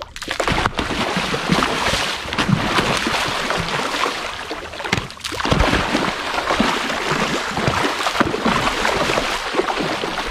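A crowd of large fish thrashing and splashing at the surface of a pond in a feeding frenzy on thrown feed, with continuous churning water and many sharp splashes, easing briefly about halfway through.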